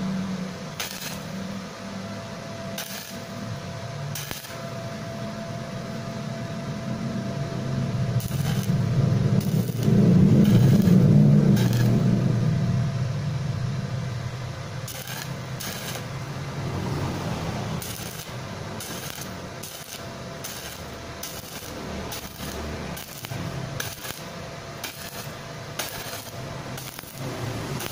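Stick arc welding with an inverter welder: short arc strikes heard as brief bursts of hiss, coming more often in the second half. A low rumble swells and fades around the middle.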